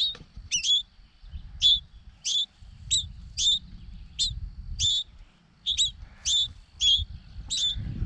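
Baby songbirds calling from the nest in a steady series of short, high chirps, about two a second: hungry begging calls from motherless nestlings.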